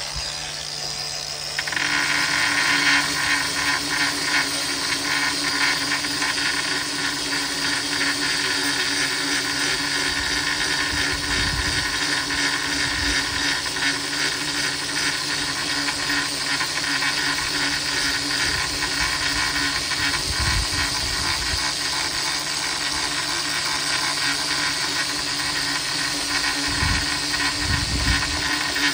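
Cordless angle grinder with a 3.5-inch diamond grinding wheel, spinning free at first, then grinding the carbide-tipped tooth of a forestry mulcher from about two seconds in. It makes a steady, loud grinding whine as it knocks the humps off the worn top of the dull tooth.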